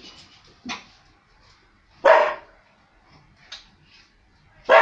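Border collie barking: two loud single barks about two and a half seconds apart, with a softer sound from the dog about a second before the first.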